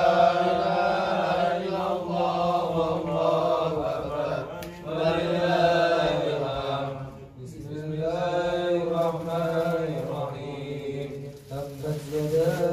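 A man's voice chanting Arabic Qur'an recitation in a drawn-out melodic style through a microphone, in long held phrases with short breaths between them.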